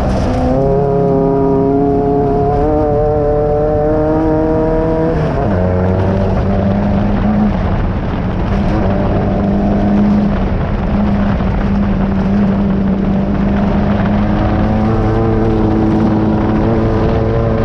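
Off-road race car's engine under load, heard from inside the car over constant rough road noise. Its note climbs slowly, drops abruptly about five seconds in, holds lower and steady, then rises again near the end.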